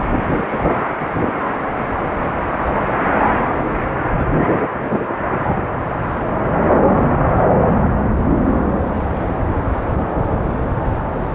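Boeing 717-200 jet airliner's twin Rolls-Royce BR715 turbofans running as it departs, a steady rumble swelling a little a few seconds in and again about seven seconds in, mixed with wind buffeting the microphone.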